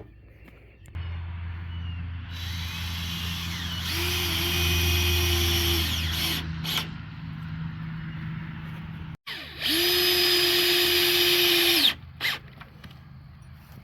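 Electric drill running in two bursts: a long run that speeds up partway through, then a short break and a second, shorter run that spins up and winds down.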